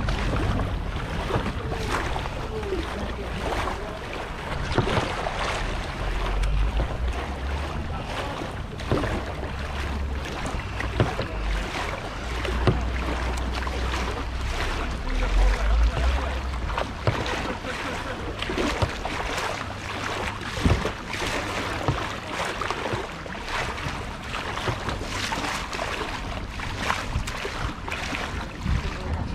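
Kayak paddle strokes splashing in canal water, one after another, with wind buffeting the microphone at times.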